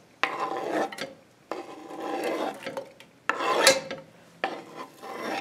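Diced onion scraped off a wooden cutting board into a stainless steel pot: about four scraping strokes across the board and against the pot's rim, each half a second to a second long, the loudest a little past halfway.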